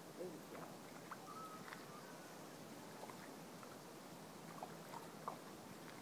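Quiet outdoor background hiss with a few soft scattered clicks and brief faint chirps.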